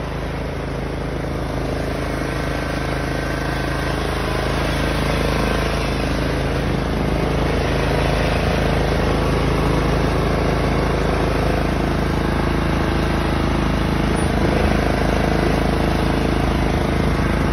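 Craftsman riding lawn mower's engine running steadily, growing a little louder over the first several seconds and then holding even.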